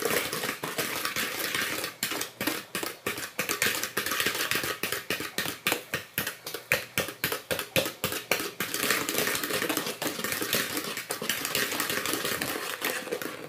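Cake batter of eggs, margarine and sugar being beaten by hand in a tilted mixing bowl: a utensil clacks against the bowl in fast, rhythmic strokes, about three to four a second, at times running into a continuous clatter. It stops suddenly at the end.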